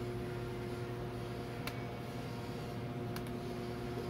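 Steady low electrical hum of room tone, with two faint clicks about a second and a half apart.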